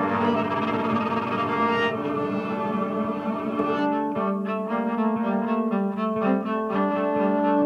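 Cello playing: several held notes ring together for the first few seconds, then from about four seconds in a quick rhythmic figure of short strokes runs over sustained notes.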